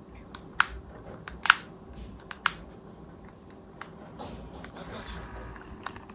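Irregular sharp plastic clicks and taps from a PS3 DualShock 3 controller being handled, a few strokes a second at most, over a faint steady hum.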